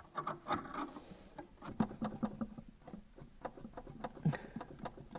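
Irregular small clicks, taps and scrapes of a wrench and gloved hands working on a brake-line fitting in a car's engine bay, metal knocking on metal.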